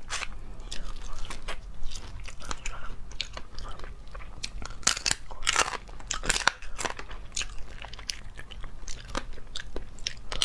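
Crunchy shells of spicy-cooked crustaceans being cracked and peeled by hand, with repeated crisp bites and chewing close to the microphone, many sharp crackles in a row.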